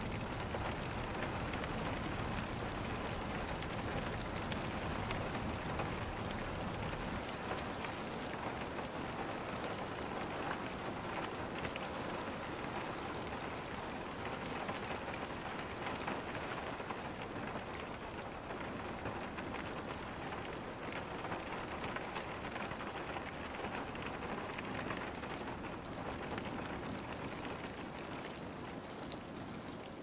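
Heavy rain falling steadily in a rainstorm, a dense even hiss of drops. A low rumble underneath fades about seven seconds in.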